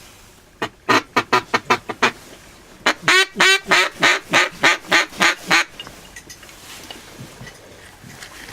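Duck call blown in a quick run of short quacks, then a second, louder run of longer quacks about three a second, stopping a little over halfway through.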